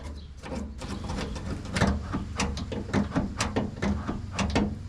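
A quick run of sharp, irregular clicks and knocks from hand work on an F-150's tailgate handle and latch linkage, over a steady low hum.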